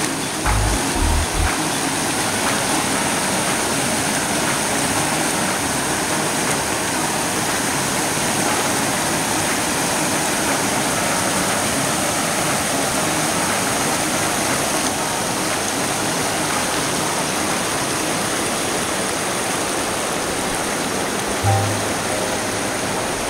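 River rapids: water rushing steadily over rock ledges.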